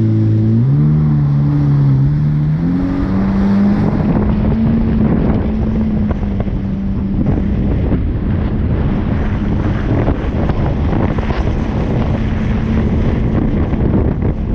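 Jet ski engine running under way at speed, mixed with water spray and heavy wind buffeting on the GoPro's microphone.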